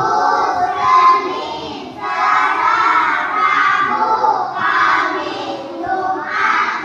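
A class of young children singing together in unison, with long held notes.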